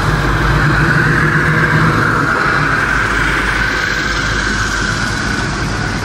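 Engine of a 1960s Chevy II Nova running at low speed as the car rolls past and away, a steady low rumble that weakens after about two and a half seconds.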